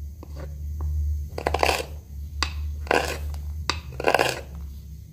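Carving gouge cutting into a mulberry wood blank: three short scraping cuts about a second apart, with a few lighter ticks between, over a steady low hum.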